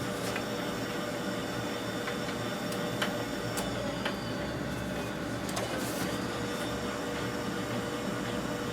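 Samsung CLP510 colour laser printer running a print job: a steady whir with a constant hum and a few light clicks.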